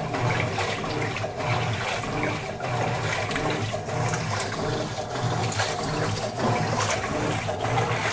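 Electrolux LTE09 top-loading washing machine running a wash, water sloshing in the tub while the motor hums in regular pulses, roughly once a second, as the agitator swings back and forth.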